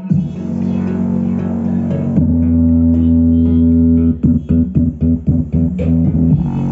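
Music with bass guitar and guitar, played through an aftermarket speaker system fitted to a scooter. Sustained bass notes come in about two seconds in, followed by a run of short plucked notes.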